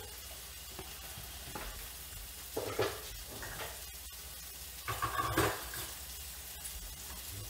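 Sausage frying in a pan on the stove, a steady sizzle, with a few short louder sounds about three and five seconds in.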